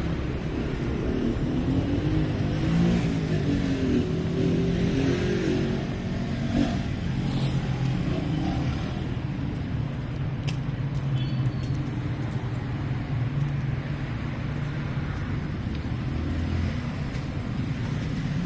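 Car traffic on a city street: engines running in a steady low drone as vehicles pass, with an engine rising and falling in pitch in the first few seconds.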